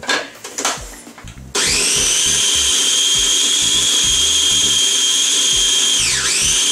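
A small electric food processor's motor running, blending a peanut ginger dressing, as a loud steady whine that starts about a second and a half in. Near the end it briefly slows and picks back up. Before it starts come a few clattering knocks of the lid and bowl.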